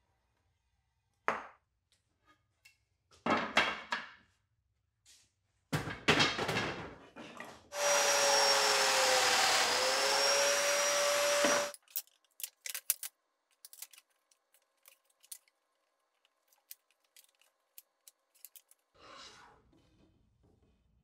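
Festool Domino joiner's motor running for about four seconds, its whine dipping briefly in pitch midway as the cutter plunges into the wood to cut a mortise, then cutting off. Before it come several knocks and clatters of wooden frame parts being handled, and light clicks and taps follow.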